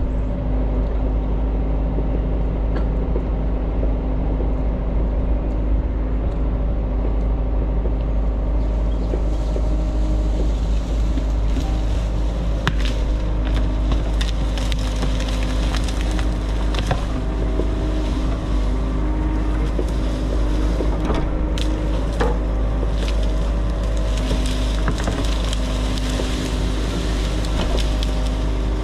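The diesel engine of a compact construction machine idling at a steady speed while it warms up to defrost its cab windows. From about eight seconds in there are scattered clanks and knocks over it.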